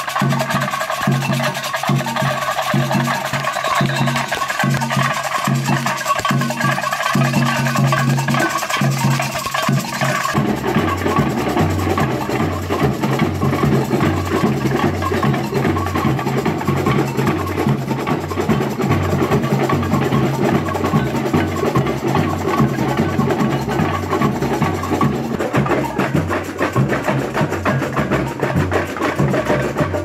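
Samba music from a samba school's percussion section playing a fast, steady samba beat, with sharp clicking percussion on top. About ten seconds in the sound changes abruptly, and a deep, evenly pulsing bass drum comes to the fore.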